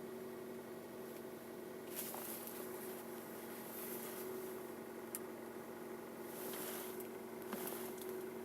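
Second-generation Kia Ceed engine idling steadily while still cold, with a few faint clicks; it is being checked for a knock that shows on cold starts.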